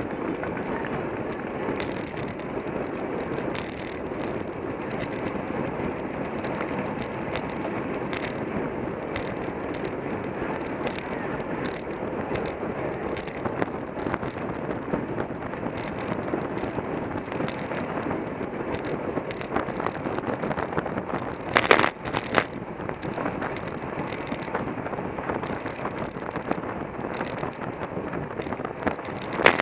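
Road bicycle ridden at race speed: a steady rush of wind on the microphone mixed with tyre and drivetrain noise, with scattered light clicks and a short louder clatter about 22 seconds in.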